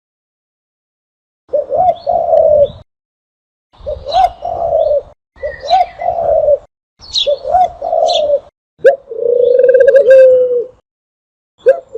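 Recorded dove call used as a hunting lure: five cooing phrases, the last one longer, each separated by dead silence, with higher chirping notes over the coos.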